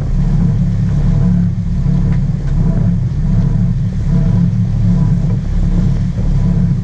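A sport-fishing boat's engines running steadily as it moves through the water, a deep, even drone.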